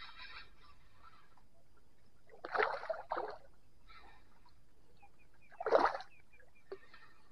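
A hooked hampala thrashing and splashing at the water's surface during the fight, in two short bursts about three seconds apart.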